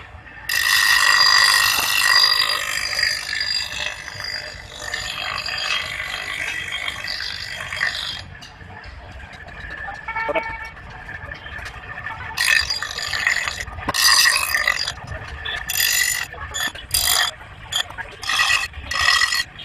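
Knife blade being sharpened, metal rasping against an abrasive with a harsh grinding hiss: one long grind over the first several seconds, then a series of short strokes in the second half.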